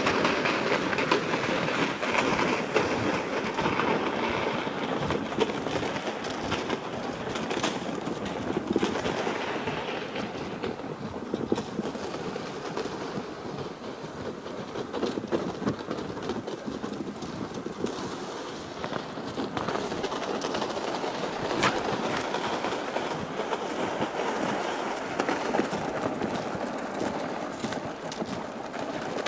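Steady crunching and scraping of footsteps over crusted snow on lake ice, thick with small irregular clicks and a few sharper ticks.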